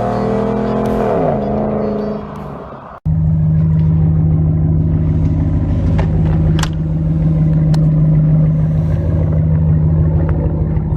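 Music fading out over the first two or three seconds, then, after an abrupt cut, a steady vehicle engine and road drone with a strong low hum, heard from inside a moving car.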